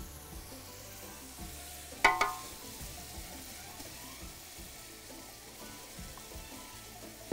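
Onions, tamarind and tomato paste frying with a quiet sizzle in a large aluminium pot while a wooden spoon stirs them. A brief, sharp knock about two seconds in, the loudest sound here.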